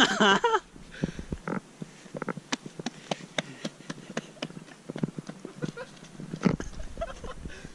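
Footsteps walking and running across a dry, cracked mud flat: a long run of short, irregular steps, with one heavier thump about six and a half seconds in. A brief vocal cry trails off in the first half second.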